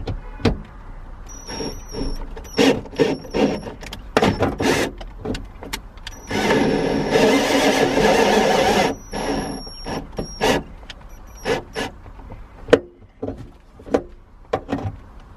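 Cordless drill-driver driving mounting bolts into a car's inner body panel: several short runs with a high whine, and one longer run of about three seconds in the middle. Clicks and knocks of metal parts come in between.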